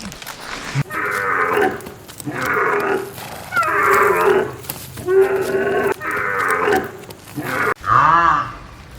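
Livestock calling repeatedly: five or six short calls, then longer calls that rise and fall in pitch near the end.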